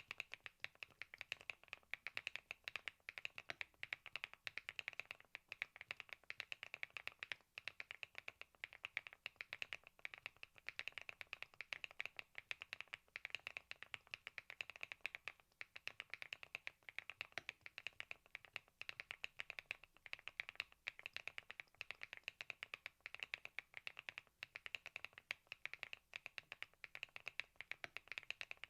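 Typing on a Thinkway TAUCHE.S 501 full-aluminium mechanical keyboard: quiet, rapid keystrokes clicking several times a second without a break.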